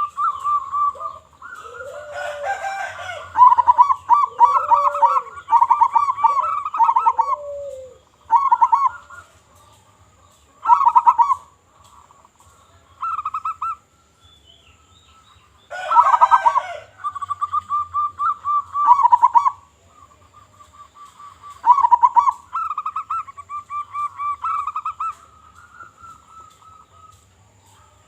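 Zebra doves (perkutut) calling: repeated phrases of rapid, trilled cooing, each a second or two long and separated by short pauses, with lower arched coos mixed in over the first eight seconds or so.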